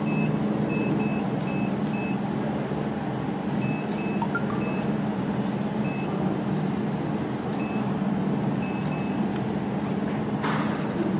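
Short electronic key beeps, some eighteen at irregular intervals, from the touchscreen control panel of a desktop fiber laser welding machine as its settings are keyed in, over a steady low hum. A short burst of noise comes near the end.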